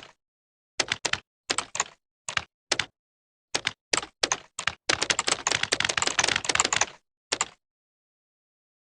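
Computer keyboard keys being pressed: scattered single and paired keystrokes, then a rapid flurry of typing for about two seconds that stops shortly after.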